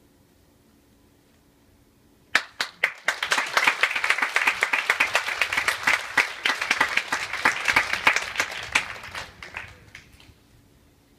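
Theatre audience applauding: a few scattered claps about two seconds in, swelling at once into full applause that lasts about seven seconds and dies away near the end.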